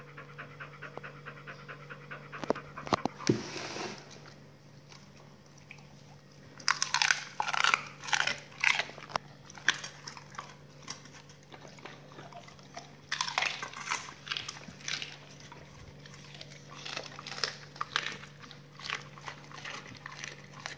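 Pit bulls panting and eating raw duck necks and meat: irregular bursts of wet chewing, biting and crunching come and go, over a steady low hum.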